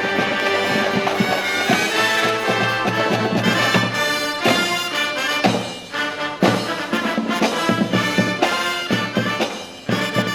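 High school marching band of brass, woodwinds and percussion playing a piece with a steady beat. The sound dips briefly about six seconds in and again just before the end.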